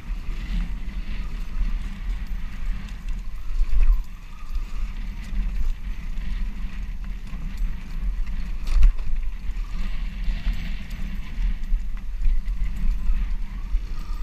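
Dirt bike engine running over a rough, rocky trail, heard through heavy wind buffeting on a helmet-mounted camera, with a sharp knock about nine seconds in.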